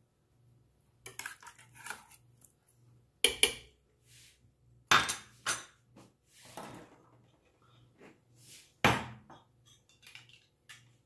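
Metal spoon clinking and knocking against a slow-cooker crock and small bowls: a handful of separate sharp clinks spread a second or two apart, the loudest about 3 and 9 seconds in.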